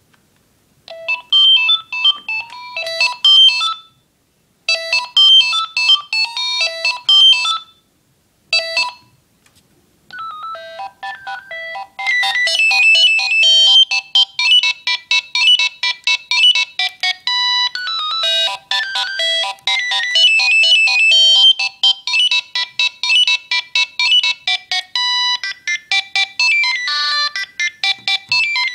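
Philips Fisio 625 mobile phone playing its built-in ringtones. A short beeping melody plays twice and then breaks off. After a pause of about a second, a different tune with faster, busier notes starts about ten seconds in and keeps going.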